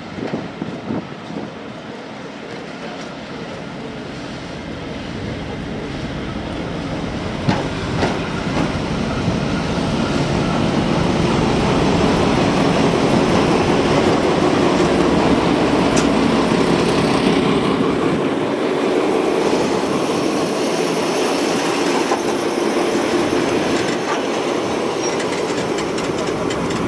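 Class 52 'Western' diesel-hydraulic locomotive, with twin Maybach V12 diesel engines, running as it approaches. Its engines grow steadily louder over about twelve seconds and then run loud and steady close by, with a few sharp clacks from the wheels on the rails.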